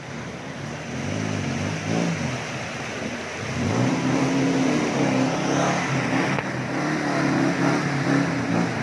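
Off-road 4x4's engine revving as it drives through a muddy stream crossing, the revs rising and falling, louder from about three and a half seconds in.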